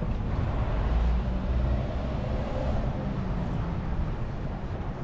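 Street traffic: a car's engine running as it drives through the intersection and away, over a steady low rumble of city noise.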